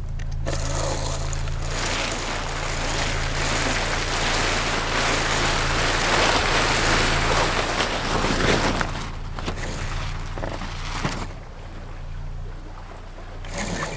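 Spinnaker sailcloth rustling and flapping as it is hoisted out of its bag and fills, loudest in the middle and dying down about eleven seconds in. A steady low hum runs underneath.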